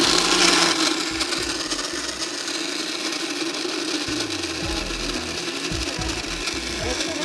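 Electric blender crushing ice in water into a slush: a steady motor hum under a coarse grinding rush, a little louder in the first second.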